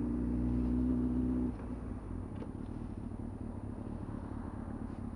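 Yamaha R6 sportbike's inline-four engine running at steady revs, then dropping suddenly about a second and a half in to a quieter, rougher low rumble at idle as the bike slows.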